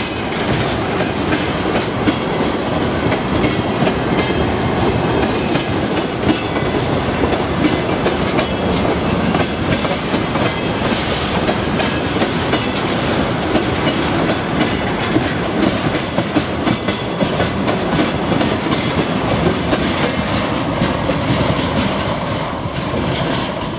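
Freight train of railway tank wagons rolling past close by: a steady rumble with a dense clickety-clack of wheels over the rail joints, easing off near the end as the last wagon goes by.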